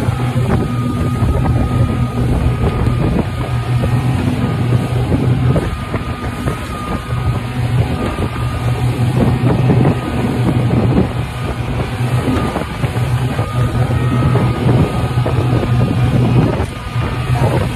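Speedboat running at speed: a steady low engine drone with a faint whine above it, under rushing wind on the microphone and the hiss of the wake and spray.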